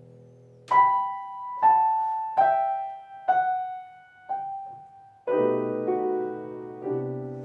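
Grand piano playing alone: a slow line of five single notes about a second apart, each struck and left to ring, then fuller chords from about five seconds in.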